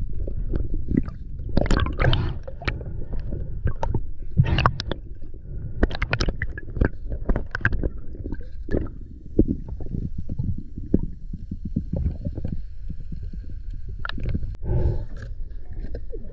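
Underwater noise heard through a camera housing: a steady low rumble of moving water with irregular sharp crackles and splashy bursts throughout.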